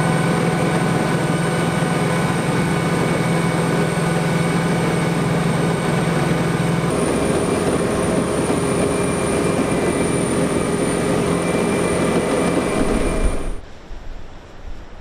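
US Marine AAV7 amphibious assault vehicle under way in the water, its diesel engine and drivetrain running as a loud, steady drone with a high whine, heard from the open top hatch. The drone changes slightly about halfway through, and shortly before the end it cuts off abruptly to quieter surf and wind.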